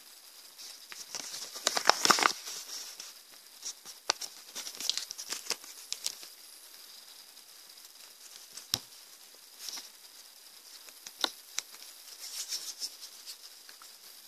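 Small plastic zip bag crinkling and rustling as it is handled and opened, loudest about two seconds in, then soft dough being pinched and kneaded by hand, with scattered crackles and light taps.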